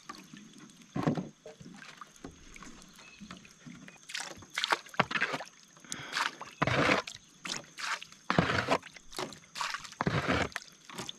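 Water splashing, sloshing and dripping as a wet trammel net is hauled hand over hand out of the water into a wooden canoe. The splashes come in irregular bursts, becoming frequent from about four seconds in.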